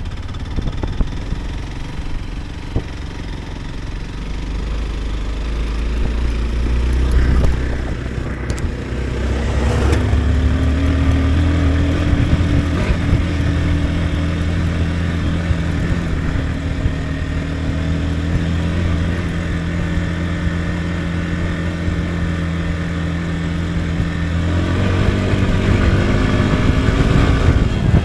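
Motorcycle engine running steadily while riding, its note stepping up about ten seconds in and changing again near the end.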